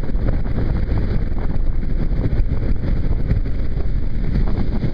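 Steady wind rush and buffeting on the microphone of a Kawasaki KLR single-cylinder dual-sport motorcycle at road speed in gusty wind, with the bike's engine and tyres on wet pavement underneath.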